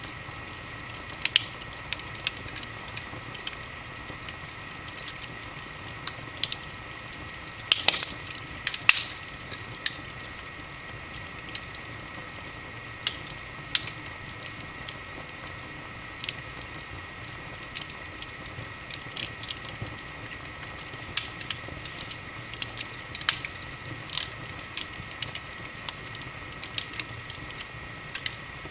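Wood fire in an open fireplace crackling, with irregular sharp pops over a steady hiss; a cluster of the loudest pops comes about eight seconds in. A faint steady high whine runs underneath.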